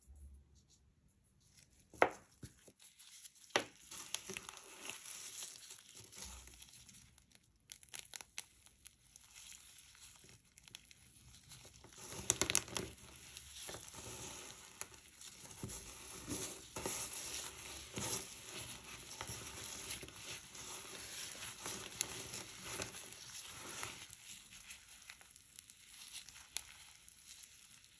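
Gloved hands crushing and squeezing broken pieces of a frozen ice cream bar: crackling and squishing. Two sharp cracks come about two and three and a half seconds in, then a steady, irregular crackle, busiest around the middle.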